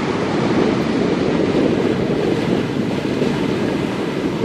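Steady, loud drone of an Airbus A400M's four turboprop engines as the aircraft climbs away after takeoff.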